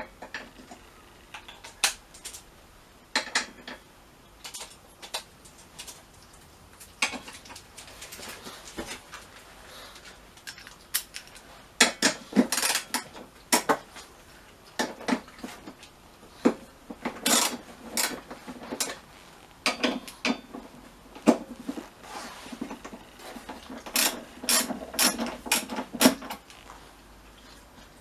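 Metal hand tools clinking and a ratchet clicking as small bolts are undone on the scooter's bodywork: scattered sharp clicks with busier runs about halfway through and near the end.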